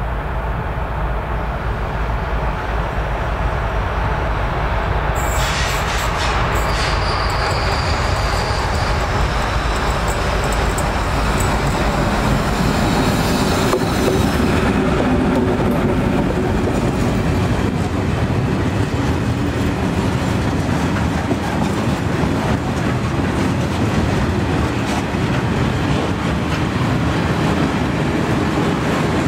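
ST44 diesel locomotive (a Kolomna two-stroke V12 diesel) running as it approaches and passes, hauling a train of loaded open wagons. From about five seconds in, a high metallic wheel squeal joins the sound. After the locomotive goes by at about the halfway point, the wagons roll past with their wheels clacking on the rails.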